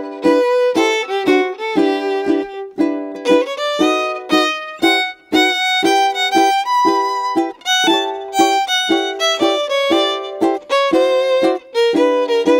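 Background music: a lively melody of short, quick pitched notes, several a second.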